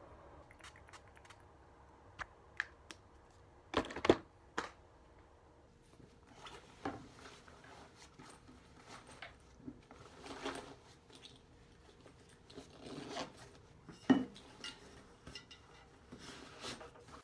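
Things being handled and packed on a desk: scattered knocks, clicks and rustling. Sharper knocks come about four seconds in and again near fourteen seconds.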